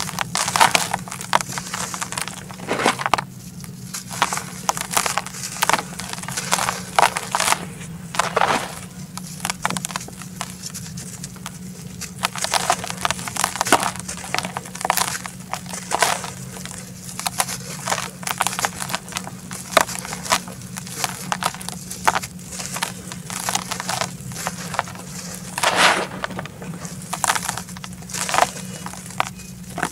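Hands crushing and crumbling soft chunks of dry red dirt in a plastic bucket: irregular gritty crunches and crackles as the clumps break apart and the powder trickles down.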